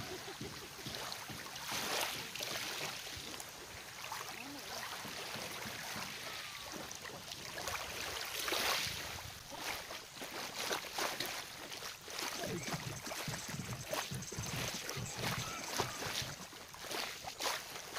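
Small waves lapping on a pebbly shore: a steady wash of water with frequent small splashes and trickles.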